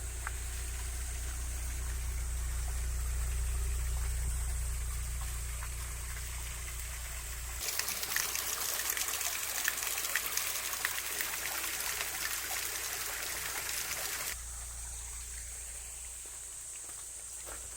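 Water from a small waterfall or stream trickling and splashing. For several seconds in the middle it is louder and brighter, with many small splashes, while a steady low hum underneath drops out.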